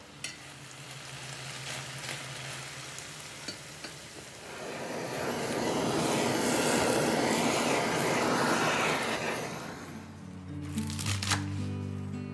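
Kitchen blowtorch flame hissing as it is played over stir-fried pork in a pan. The hiss starts about four seconds in, lasts about five seconds, then fades. Soft background music plays throughout.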